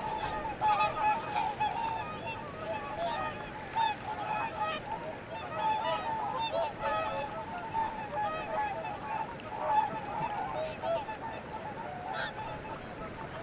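A flock of waterfowl honking: many short, overlapping calls keep up a steady, dense chorus.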